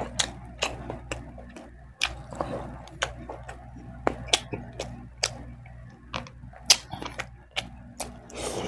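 Close-miked chewing of a mouthful of rice and milkfish, with wet mouth clicks and smacks coming irregularly, a few each second, over a low steady hum.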